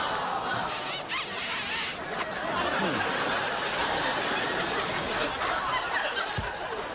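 Studio audience laughing and applauding.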